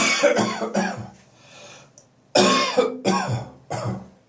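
A person's dry morning cough lingering after bronchitis: two fits of several hacking coughs each, the first at the start and the second a little past halfway, with a short pause between.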